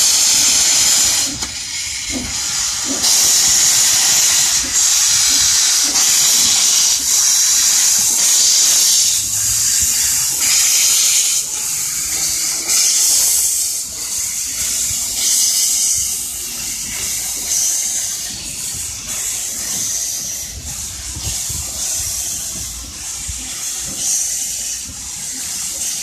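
Narrow-gauge (610 mm) steam locomotive pulling away with its cylinder drain cocks open: loud hissing of steam blowing from the cylinders in pulses with each stroke, fading as the engine moves off.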